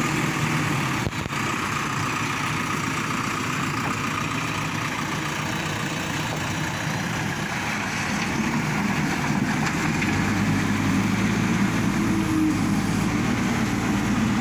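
Heavy diesel engine of construction machinery running steadily, growing louder and deeper about ten seconds in as it takes on more load.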